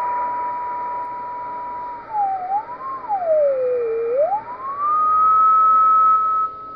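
A carrier heard as a whistling beat note through a Yaesu FT-847 transceiver in CW mode, over receiver hiss. Its pitch follows the tuning knob: steady at first, then wavering and sliding lower about halfway through, and rising to a higher steady whistle for the last couple of seconds. It is interference on the 436.2 MHz satellite downlink, which the operator puts down to a local baby monitor.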